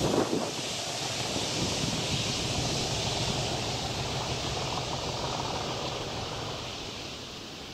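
Rumble and rail noise of a train moving away along the line, fading steadily, with wind noise on the microphone.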